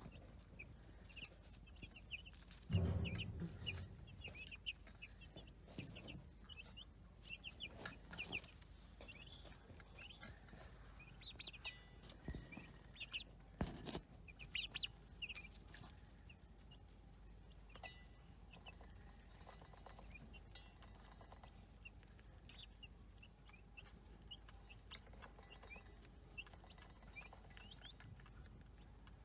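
Baby chicks peeping: many short, high cheeps overlapping, busiest in the first half and thinning out later. A dull thump about three seconds in and a couple of sharp knocks near the middle.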